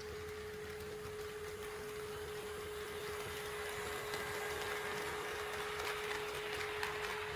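HO-scale model train running on the layout track: a rushing rattle of wheels and motor with fine clicks, which grows louder from about three seconds in as the train approaches. A steady hum-like tone sounds throughout.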